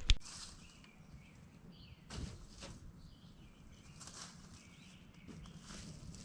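Quiet outdoor ambience with faint bird calls and a few soft rustles, after a sharp click at the very start.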